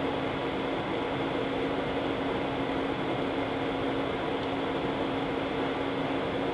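Steady jet-engine and ventilation noise inside an airliner cabin while taxiing, with a constant low hum running under an even hiss.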